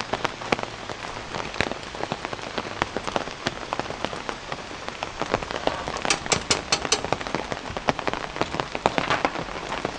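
Rain falling and dripping onto hard surfaces, a dense, irregular run of drop sounds over a steady hiss. A quick run of sharper taps comes about six seconds in.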